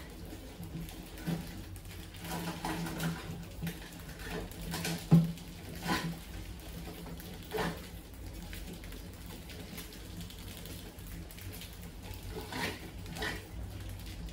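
Rats scrabbling and clambering on a glass trap tank and its wire-mesh lid: irregular scratching, light rattles and knocks, with one sharp knock about five seconds in, over a steady low hum.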